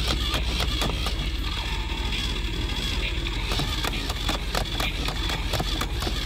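Battery-powered motorized alligator toy car running in try-me mode: a small motor and gears whirring with a steady high whine and rapid, irregular clicking, along with the toy's sound effects.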